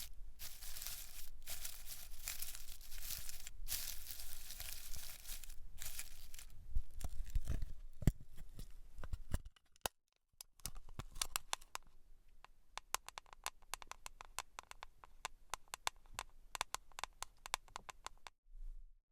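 Close-miked hair and scalp sounds: a dense scratchy rustle for about nine seconds, then after a brief silence a long run of fine crackles and clicks.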